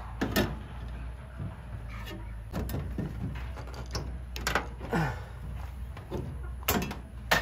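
Hand snips cutting through the thin sheet-metal wall of a shed, their blades closing with sharp clicks several times, a quick cluster of snips near the end.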